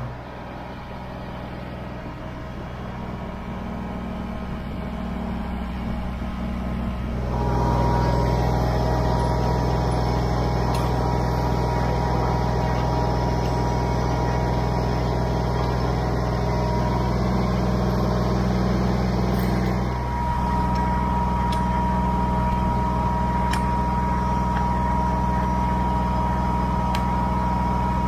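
Kubota BX23S compact tractor's three-cylinder diesel engine idling steadily. It grows louder over the first few seconds and steps up abruptly about seven seconds in, and a steady higher whine joins about twenty seconds in.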